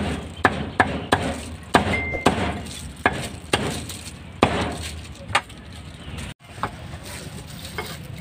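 Meat cleaver chopping roasted meat: a string of sharp chops at an uneven pace, about one or two a second.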